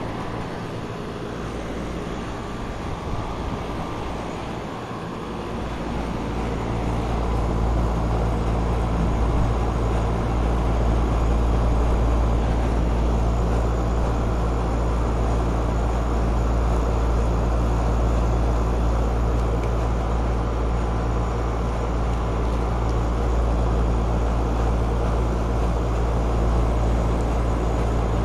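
Lennox central air-conditioner condenser unit running: a steady compressor hum with fan noise, louder from about six seconds in.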